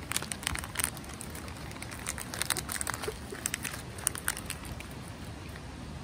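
Plastic Skittles candy pouch crinkling as it is torn open by hand: a run of crackles that stops about four seconds in.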